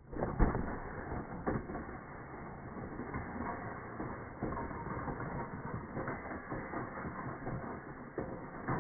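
Rough, steady scraping and crunching of movement over hard, crusty snow, with a few louder knocks in the first two seconds.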